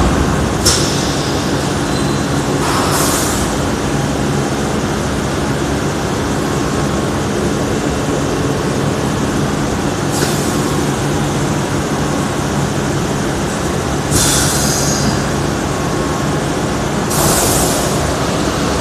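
Thermoforming vacuum packaging machine running with a steady mechanical hum, and a few short hisses of compressed air as its pneumatic stations cycle.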